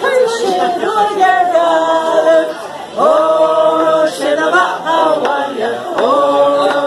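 Soundtrack song: voices singing held, gliding notes with little or no instrumental backing, with a short breath-like pause a little before the middle.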